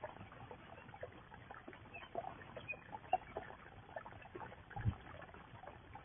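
Faint garden-pond ambience heard through a security camera's thin microphone: scattered small ticks and crackles with a faint trickle, two brief high chirps about two to three seconds in, a sharp tick near the middle and a soft low thump about five seconds in.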